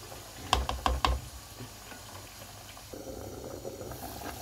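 A ladle knocking a few times in quick succession against a pot of stew, then the stew bubbling at a boil.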